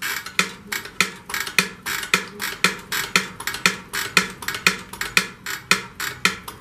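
Rear brake pedal of an SSR pit bike pumped rapidly, a sharp metallic clack with a short ringing note about twice a second, as the pedal is worked to build pressure for bleeding air out of the brake line.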